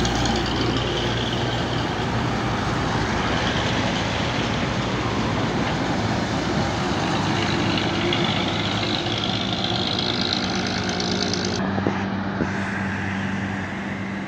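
Heavy trucks driving past on a road: engines running under steady tyre and road noise, with a low, steady engine hum. The sound shifts abruptly about twelve seconds in to another truck's steadier hum.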